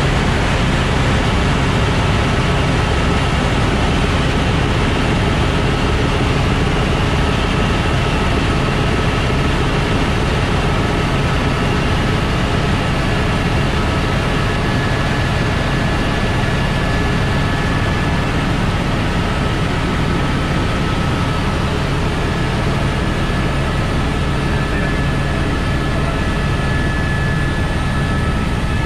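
Airbus AS350 Écureuil helicopter in flight: a steady, loud running sound, a thin high turbine whine over a dense low rotor rumble.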